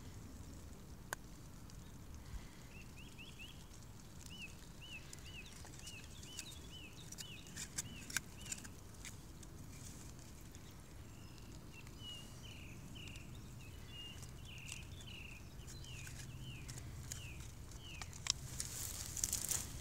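A bird repeating a short whistled chirp about twice a second, in two runs, faint in the background. Scattered clicks and a louder rustle near the end come from hands handling the thin aluminium wind shields around a small oil burner.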